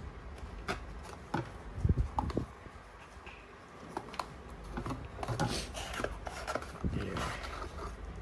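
Packaging being handled while a small box is unpacked: rubbing and scraping with light clicks and taps, and a few louder thumps about two seconds in.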